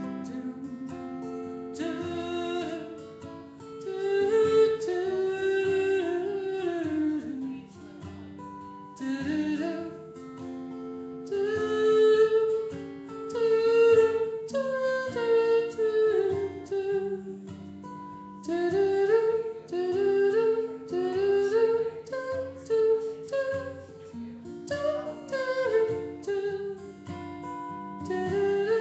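A solo singer singing a song in phrases, accompanied by an acoustic guitar, amplified through a PA microphone at a live open mic.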